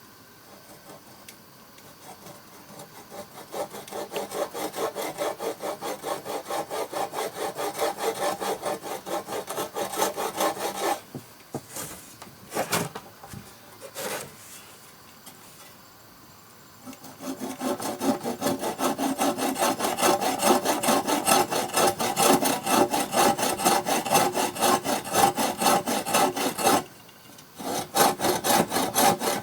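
A hand tool working wood in fast, even rasping strokes, in two long spells. A few separate knocks fall in the pause between them.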